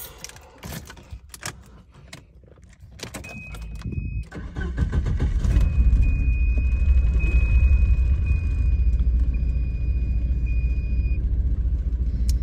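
Keys jangling and clicking in the ignition, then a 1995 Volvo 940's engine cranking and catching about five seconds in, on its first start with a new distributor cap and rotor, and running steadily after that. A thin, steady high tone sounds over the running engine for several seconds.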